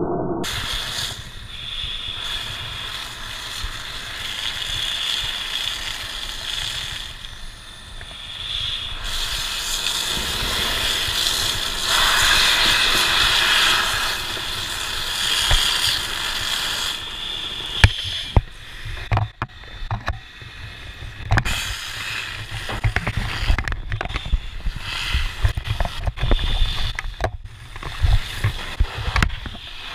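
Fire hose spraying foam-water onto a burning car's magnesium parts, giving a steady loud hiss. From about halfway in, it is broken by many sharp cracks and knocks.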